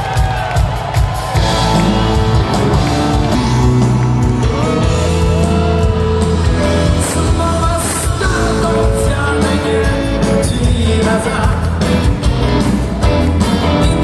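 A live rock band playing through an arena's sound system, with the low end coming in at the start and the full band swelling about a second and a half in.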